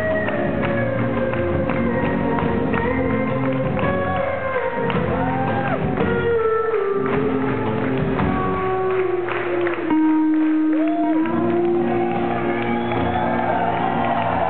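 Live band music from the audience: sustained melody notes, some bending in pitch, over a full band accompaniment.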